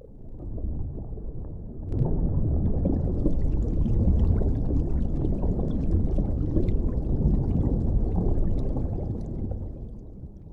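Muffled underwater rushing and gurgling water, a sound effect. It swells up from silence, jumps louder with a sharp click about two seconds in, and fades away near the end.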